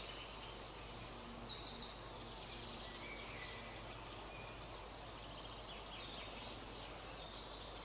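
Faint high-pitched bird calls, short phrases of rapid repeated notes coming and going, over a quiet outdoor background.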